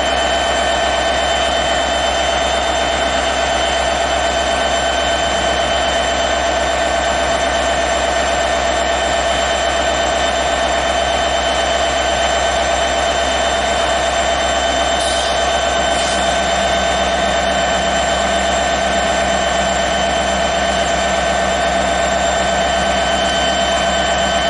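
Norfolk Southern EMD SD70ACe diesel locomotive, with a second unit behind it, running at close range while standing or barely moving. A steady, unchanging engine drone with constant high whining tones over it.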